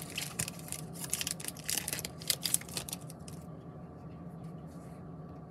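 Crinkling and rustling of plastic and foil packaging being handled, dense crackles for about three seconds, then only faint scattered rustles.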